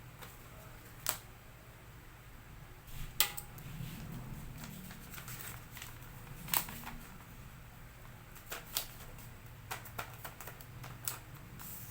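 Laminator being handled and worked on: scattered sharp clicks and knocks, about a dozen, over a steady low hum.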